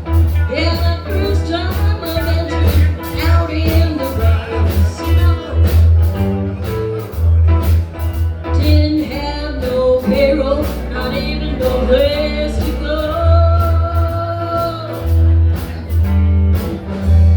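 Live blues band playing: a singer's voice over a steady beat of drums, bass and guitar.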